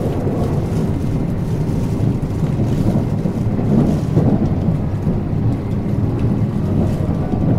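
Steady low rumble of wheels on rail and running gear heard inside the carriage of a moving 381-series limited express train.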